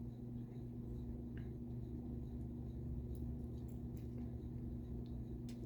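A few faint, small metallic clicks as the plug of an American Lock 1100 series padlock is slid back into the lock body past the driver pins, over a steady low hum.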